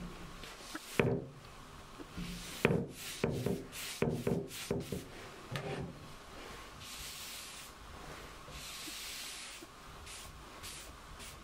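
Paintbrush strokes dragging paint across a wooden cabinet top, a soft rubbing hiss that is steadiest in the second half. In the first half a run of short, louder knocks and handling noises.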